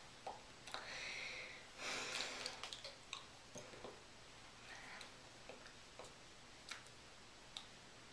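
Faint breaths and small mouth sounds, with soft ticks and rustles as hands brush the body and clothing during sign language. The two breathier stretches come about one and two seconds in.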